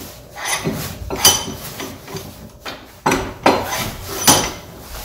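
Steel sliding T-handle of a ductile-iron 5-inch bench vise clanking through its screw bar and against its end stops: about four sharp metallic clanks, each with a short ringing tail.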